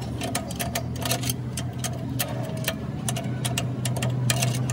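Rapid, irregular metallic clicks as a long steel rod is worked against a truck's front brake assembly at the backing plate, over a steady low hum.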